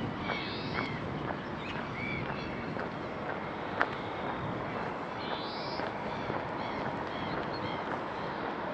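Small songbirds calling in outdoor morning ambience: scattered short chirps and a repeated short trilled phrase every few seconds, over a steady background hiss. A single sharp click about four seconds in.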